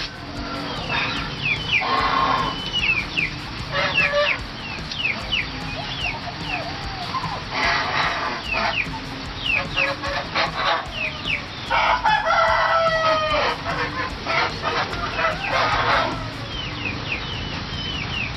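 Backyard poultry calling: clucking and crowing, with many short high peeps throughout and louder bursts of calling every few seconds.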